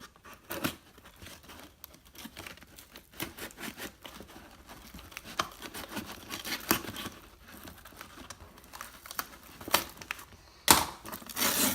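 Packaging being pried open by hand: irregular crinkling and scraping with small tearing sounds, and a louder burst of tearing near the end.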